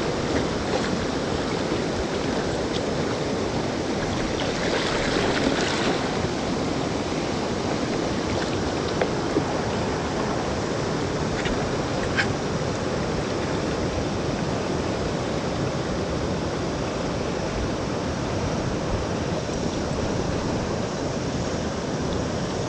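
Steady rushing of the Yoshino River's fast main-stream current, with a few short faint clicks over it.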